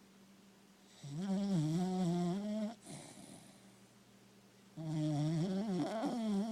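Cocker spaniel snoring in deep sleep: two long, wavering snores about two seconds apart, with quiet breathing between them.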